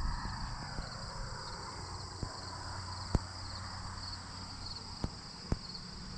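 Steady chorus of insects trilling, with a low rumble underneath and a few sharp clicks.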